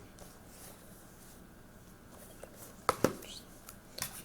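Mostly quiet, with a quick pair of sharp clicks about three seconds in and one more click near the end: objects being handled and set down on a table.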